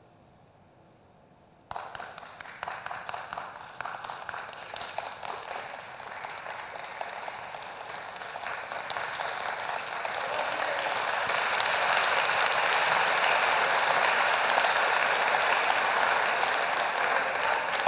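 Audience applause. It starts suddenly about two seconds in as scattered clapping, swells into full applause and begins to die down near the end.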